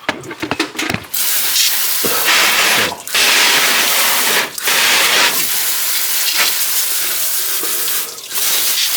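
Water spraying hard from a garden hose nozzle onto the engine bay, rinsing off cleaner and coolant residue. A steady spray starts about a second in and stops briefly three times.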